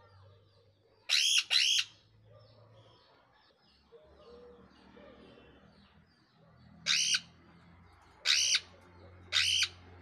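Caged green parrots giving five loud, shrill screeches: a quick pair about a second in, then three more near the end, spaced about a second and a half apart, over faint steady twittering.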